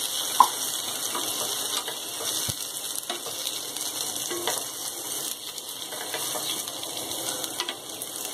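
Stuffed eggplants sizzling steadily in hot oil in a kadhai, with a spatula scraping and clicking against the pan as they are turned over; a sharp clink comes about half a second in.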